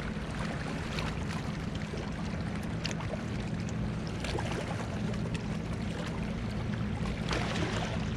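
Steady low rumble of wind on the microphone with water lapping, scattered faint ticks, and a short rush of noise near the end.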